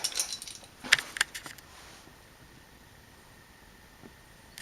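Light clicks and small metallic rattles of a removed duplex electrical outlet and its wires being handled, bunched in the first two seconds, then low room noise and one sharp click at the very end.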